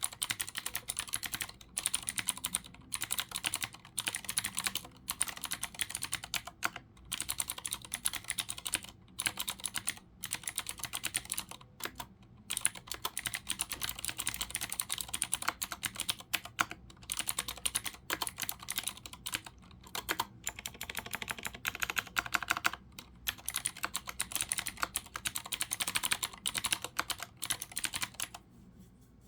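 Continuous fast typing on a Leopold FC900R mechanical keyboard with clicky Cherry MX Blue switches and PBT keycaps: a dense stream of sharp key clicks broken by brief pauses, stopping about a second before the end.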